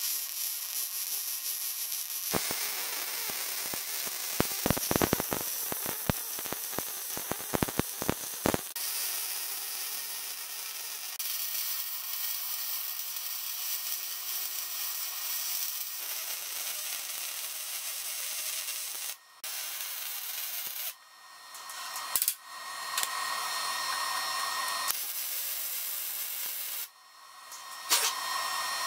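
MIG welder arc on steel plate: a steady hiss with frying crackle, the crackle heaviest in the first third. The arc stops and restarts several times in the second half.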